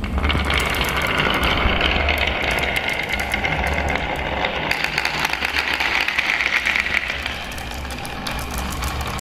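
Glass marbles rolling down grooved wooden marble-run tracks, a continuous rattle of many small clicks as they knock against the wood and each other.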